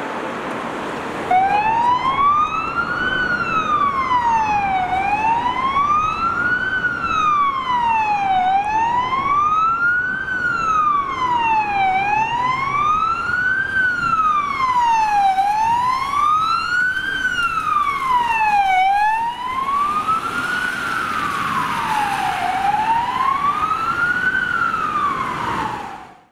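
Ambulance siren on a MAN TGE ambulance responding on an emergency run, sounding a slow wail that rises and falls about every three and a half seconds, with street traffic beneath it. The wail starts about a second in.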